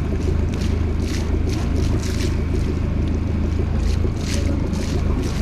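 A boat's engine running steadily, a low continuous hum with a fast even pulse, over wind rushing on the microphone and the hiss of water at sea.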